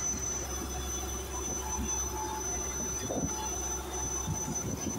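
Steady drone of a mechanised fishing boat's diesel engine running, a constant low hum with a thin high whine above it.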